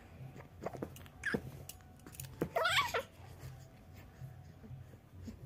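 Baby cooing: two short vocal sounds, then a longer coo that bends up and down in pitch a little over two seconds in.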